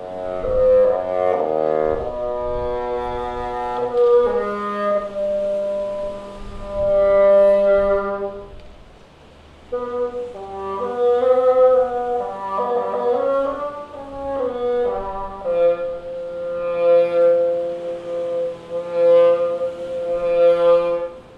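Solo bassoon playing long held notes and shorter moving phrases with slides in pitch, breaking off briefly about nine seconds in before playing on.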